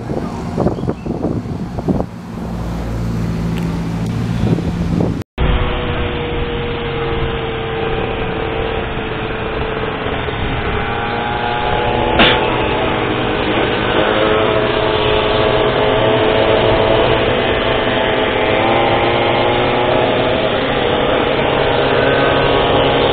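Street traffic of passing motorcycles, then several small 50cc two-stroke stand-up scooter (Goped) engines running together at cruising speed, their pitches drifting slowly up and down. A single sharp click about 12 seconds in.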